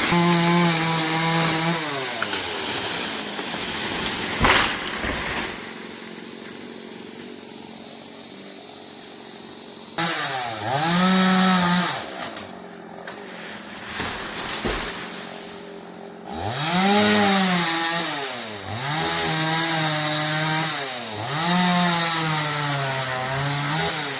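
Chainsaw engine revving up and falling back in repeated bursts, settling to a quieter idle for about four seconds partway through.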